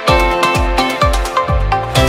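Electronic background music with a steady kick-drum beat, about two beats a second, under a sustained synth melody.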